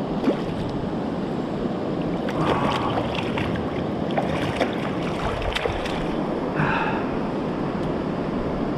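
Stream water flowing steadily past the bank, with a few small splashes and knocks as a hand holds a trout in the shallow current.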